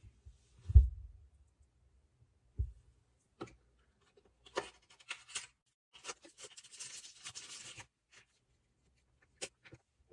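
Box and packaging being handled during an unboxing: a heavy thump about a second in and a lighter one a couple of seconds later, a run of clicks and taps, then about two seconds of rustling packaging, and a last sharp tap near the end.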